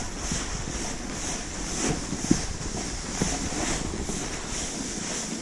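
Snowboard sliding over groomed snow, its edge hissing and scraping in swells about every half second, with wind rumbling on the microphone and a couple of sharp knocks a little past the middle.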